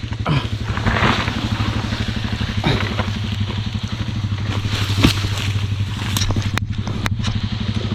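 Honda CRF300 Rally's single-cylinder four-stroke engine running steadily at low revs, with a few knocks and clatters over it, the sharpest about five seconds in.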